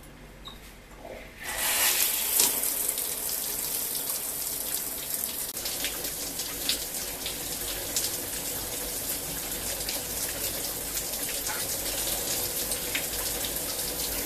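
A water tap turned on about a second and a half in, running steadily into a sink, with a few splashes.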